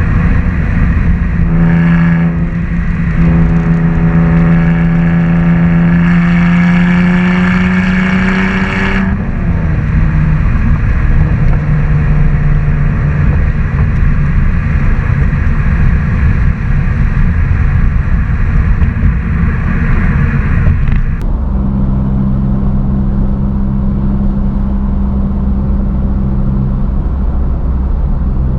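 BMW inline-six car engine and exhaust under way, the pitch rising steadily as it pulls, then dropping suddenly about a third of the way through. It holds a steady cruising note, and about two-thirds in the brighter upper sound cuts away, leaving a lower, even drone.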